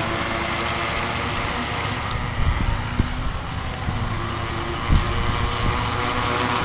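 The 9.6-volt electric motor of a 16-inch Tornado RC toy boat running at speed across the water: a steady hum that shifts up and down in pitch a few times.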